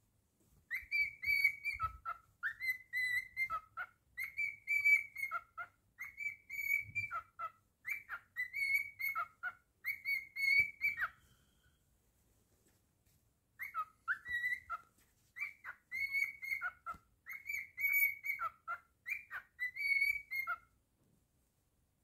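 Cockatiel whistling a repeated tune: short phrases, each a held high note that drops to a lower one at its end, over and over. It breaks off for about two seconds in the middle and then goes on.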